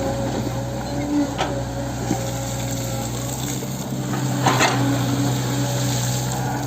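Hitachi 110 excavator's diesel engine running steadily, with a few sharp clanks, the loudest pair about four and a half seconds in.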